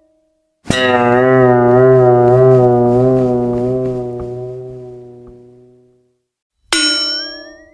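Cartoon-style comedy sound effect: a long, brass-like note with a wobbling vibrato that slowly fades over about five seconds. Near the end a bell-like ding strikes, with a rising whistle sliding up over it.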